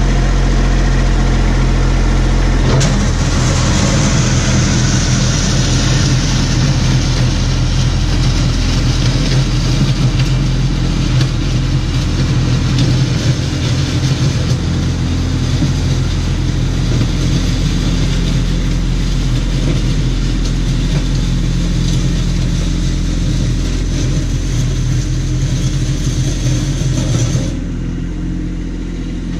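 Kubota B2601 compact tractor's three-cylinder diesel engine running steadily under throttle as it drives over loose gravel, the engine speed stepping up about three seconds in. The sound drops abruptly near the end.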